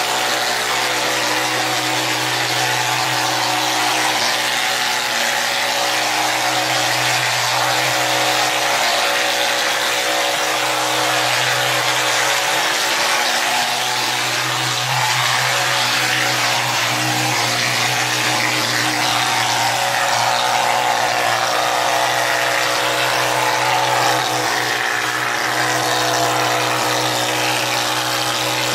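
Powermix Alpha plastering machine with a D7-2.5 rotor-stator pump running steadily while spraying gypsum plaster: a continuous machine hum under a broad hiss of air and material at the spray gun. The hum dips briefly about halfway through.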